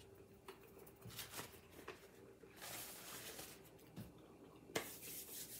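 Faint eating sounds at a table: soft chewing of fried salt cod with small clicks, and a paper napkin rustling briefly near the end.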